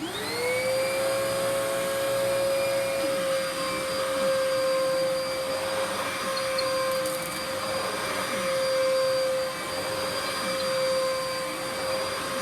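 Dirt Devil PowerMax Pet upright vacuum cleaner (model UD70167) switching on. Its motor whine rises quickly to a steady pitch, then it runs steadily.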